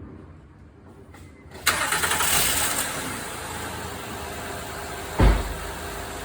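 Car engine cranked and starting about a second and a half in, loudest as it catches, then settling into a steady idle. A short thump comes near the end.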